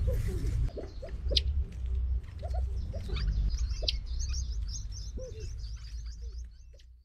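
Edwards's pheasant chicks peeping in short, high chirps, mixed with low soft calls, over a steady low rumble. The sound fades out near the end.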